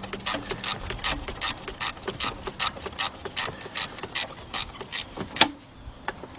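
Hand ratchet with a 12 mm deep socket clicking rapidly, about five clicks a second, as a bolt is backed out; it stops with one louder click a little past five seconds in.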